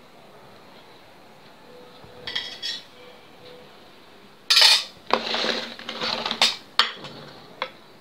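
Metal spatula clinking and scraping against a metal baking tin and a ceramic plate as a piece of cake is lifted out and set down. Two light clinks come about two seconds in. About halfway through there is a sharp clatter, then a second or so of scraping and a few short clicks near the end.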